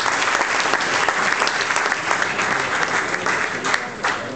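Audience applauding, a dense, steady clapping that thins out near the end.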